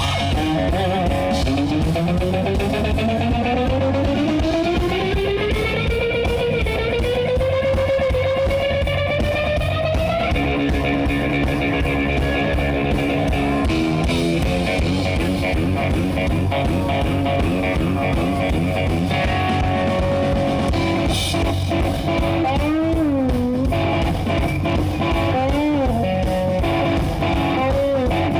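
Live blues-boogie band in an instrumental break led by electric guitar. One note slides slowly upward over the first ten seconds, then come repeated notes, and wavering bent notes near the end, over a steady bass line.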